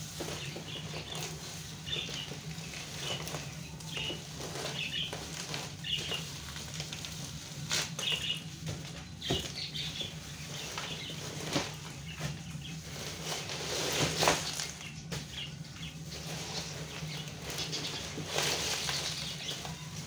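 Plastic bag rustling and crinkling in irregular bursts as gloved hands pull pieces of raw lung out of it, over a steady low hum.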